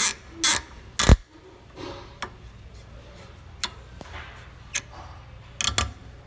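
Hard clicks and knocks at irregular intervals, about seven in all, from crossbow parts and tools being handled during limb assembly. The loudest is a heavier knock about a second in.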